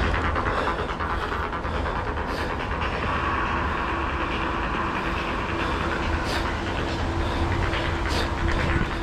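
Mountain bike being ridden along a dirt jump trail: a steady rush of tyre and wind noise with a few scattered rattles.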